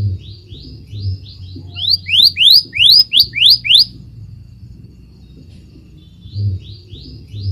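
Scarlet minivet singing: a phrase of about fifteen quick rising whistles, roughly four a second, growing louder as it goes. After a short pause, the phrase starts again near the end.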